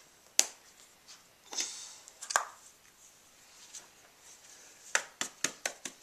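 Sharp clicks and taps of Play-Doh toys being handled on a table: a single click about half a second in, a soft rustle and another click around two seconds, then a quick run of clicks near the end.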